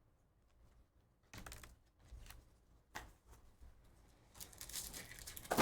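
Faint rustling of trading cards and foil pack wrappers being handled: a few short brushes, then a longer stretch of rustling near the end.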